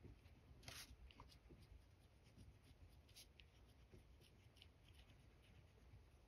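Faint scratching of a Sharpie pen writing cursive on lined loose-leaf paper, in short irregular strokes, the clearest a little under a second in.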